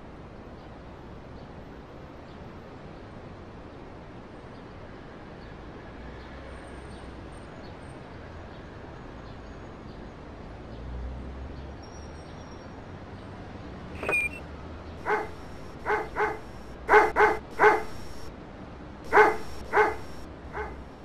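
A dog barking in short single barks, about ten in all, starting about two-thirds of the way in, some coming in quick pairs and threes. Before the barking there is only a steady hiss.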